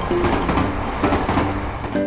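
Train sound effect: a train running past with the noise and clatter of its wheels, over steady background music.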